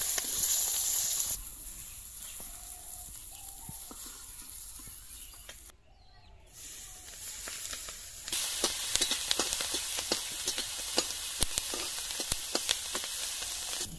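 Hot oil sizzling in an iron karahi. Fish pieces fry loudly for the first second or so, then the sizzle settles to a quieter hiss and drops out briefly near the middle. From about eight seconds in, sliced onions and green chillies fry loudly, with many sharp pops and ticks as a steel spatula stirs them.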